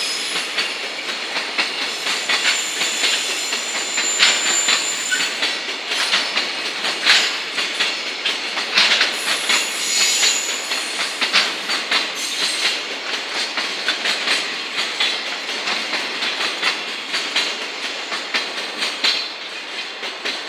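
Loaded container flat wagons of a long freight train rolling past, their wheels clacking over rail joints in a quick, uneven rhythm over a steady rumble of running noise. A few brief, thin high wheel squeals come and go, near the start and around the middle.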